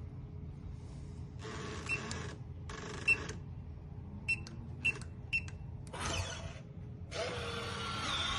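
Electronic keypad door lock beeping as a code is keyed in: five short high beeps, each with a button click, spread over a few seconds. Between them and near the end come longer stretches of mechanical noise.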